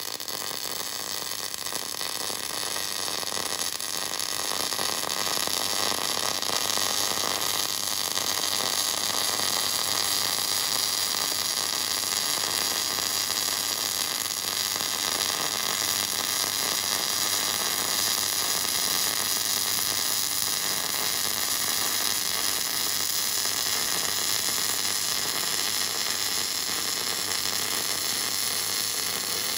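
MIG welding arc crackling and hissing steadily through one long continuous bead on steel, stopping abruptly just after the end.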